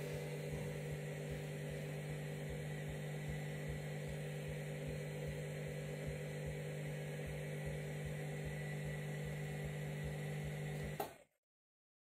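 Candy front-loading washing machine running a bleaching wash: a steady mechanical hum with some low, uneven rumble from the drum and water. It cuts off suddenly with a click about eleven seconds in.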